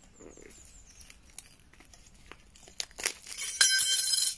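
A small cardboard box being opened, with a few faint clicks. About three seconds in comes a loud scraping, crinkling rush as the folding metal pocket stove is slid out of its packaging.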